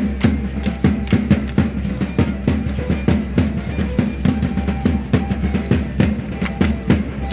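Matachines dance music: a drum beating a fast, even rhythm of about four or five strokes a second, with sharp percussive clicks throughout.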